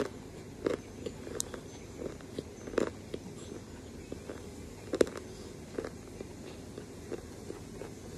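Chalk being chewed close to the microphone: irregular crunches and wet mouth clicks, the loudest about five seconds in.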